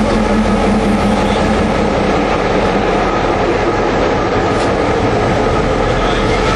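Kuranda Railway passenger train running along the track: a loud, steady rumble of wheels and carriages, with a low hum that fades about two seconds in.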